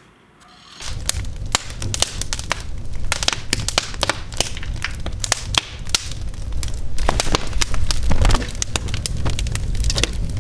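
Wood fire burning in a corner fireplace: dense crackling and sharp pops over a low steady rumble, starting abruptly about a second in.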